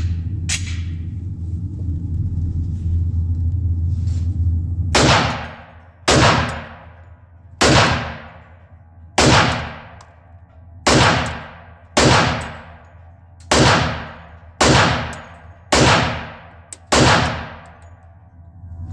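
Ten slow, aimed shots from a Glock 41 .45 ACP pistol, spaced about one to one and a half seconds apart, each followed by a long echoing decay. A steady low hum runs before the first shot, about five seconds in.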